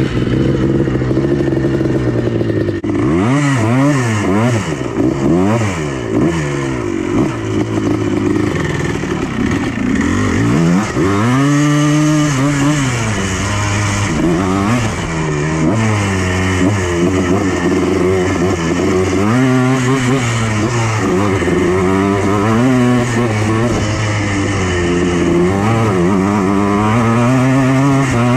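Yamaha Blaster's single-cylinder two-stroke engine revving, its pitch repeatedly rising and falling as the throttle is opened wide and released.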